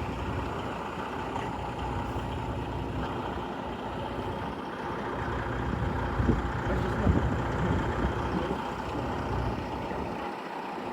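Truck engine running steadily, getting a little louder for a couple of seconds around the middle.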